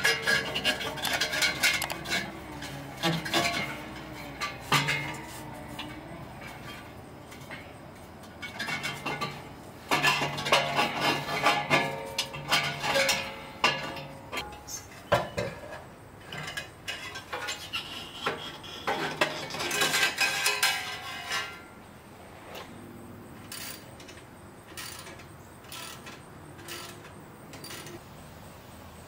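Stainless steel aftermarket exhaust pipes and muffler clanking, clinking and scraping as they are handled and fitted under a pickup truck. The sounds come in busy bursts through the first two-thirds, then thin out to scattered ticks.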